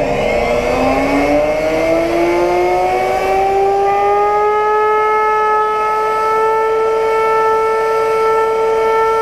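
Router motor on a router table spinning up, its whine rising steadily in pitch for about five seconds and then holding at a steady high pitch.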